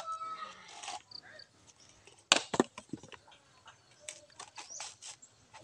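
Dry coconut shells knocking and clattering as they are picked up and handled from a pile: a few sharp hollow knocks, the loudest about two seconds in, among smaller clicks.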